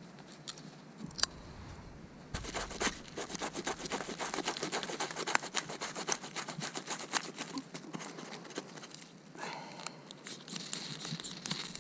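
Knife blade scraping birch bark into fine shavings for tinder: rapid, repeated rasping strokes from about two seconds in until about nine seconds, then a shorter, softer scrape near the end.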